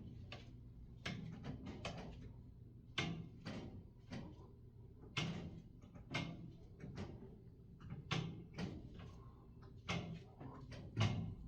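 Irregular scratching, clicking and light knocking from inside the ceiling or walls, a few sounds a second over a steady low hum; the tenant takes them for rats moving and scratching in the building.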